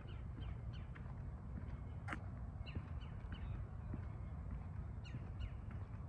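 Birds calling with short, sharp chirps scattered throughout, over footsteps on a paved path and a low rumble. A single sharp click about two seconds in.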